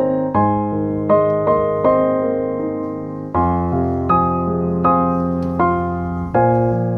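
Background piano music: gentle notes struck a few times a second over sustained bass notes, each note fading after it is struck.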